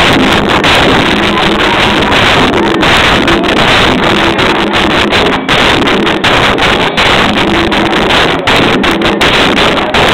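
Wind buffeting the camera microphone: a loud, steady roar that covers the scene, broken by many brief dropouts.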